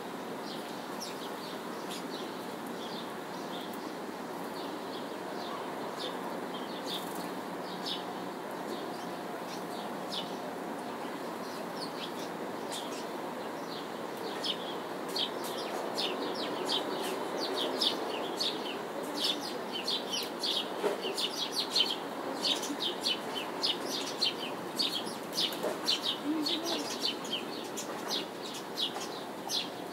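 Birds chirping in many quick, short notes, sparse at first and busier from about halfway through, over a steady hum of distant city noise.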